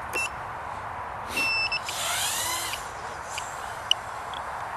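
Short electronic beeps: two brief steady high tones, the second about a second and a half in. They are followed by a brief rising whine and a few faint clicks.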